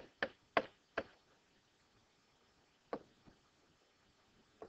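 Pen stylus tapping and clicking against a writing surface as numbers are handwritten: four sharp taps in the first second, two more around three seconds in, and another near the end.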